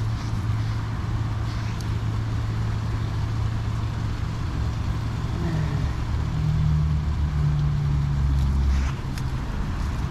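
Steady low engine hum of road traffic. A heavier vehicle grows louder about six seconds in and drops away near nine seconds.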